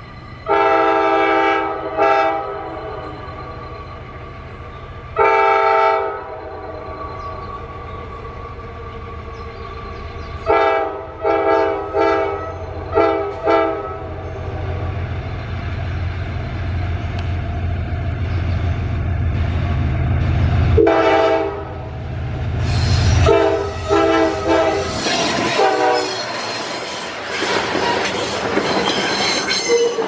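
Freight locomotive's Nathan K5LA air horn sounding repeated chord blasts, long ones first and then clusters of short ones, as the train approaches with its diesel engine's low rumble building. After about 23 seconds the locomotive passes and the loaded wagons clatter and squeal over the rails.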